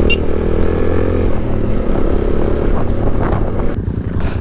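Motorcycle engine running at road speed with wind rush, heard from the rider's own bike. Near the end the sound changes abruptly and the wind noise falls away, followed by a short scrape-like burst.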